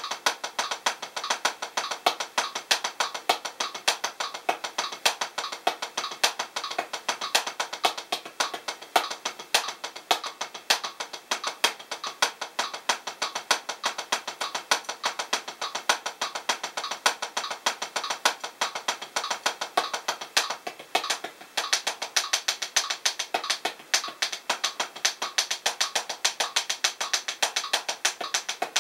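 Los Cabos 7A hickory drumsticks playing single paradiddles (RLRR LRLL) on a Drumeo P4 practice pad: an even, unbroken stream of 16th-note stick taps at 100 bpm, close to seven strokes a second.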